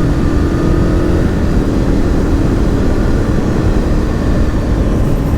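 Aprilia RSV Mille R's 998 cc V-twin, breathing through an aftermarket Akrapovic exhaust, running under way on the road. Its note eases down slightly in the first second, then holds steady over a heavy low rumble of wind on the microphone.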